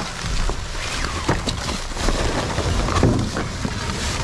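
Rummaging through discarded items in a dumpster: scattered knocks, clicks and rustling as things are moved and handled, over a steady low rumble.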